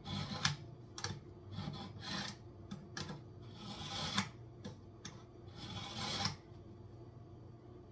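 A kitchen knife blade being sharpened on a piece of concrete: a series of uneven scraping strokes, some short and some drawn out, stopping about six and a half seconds in.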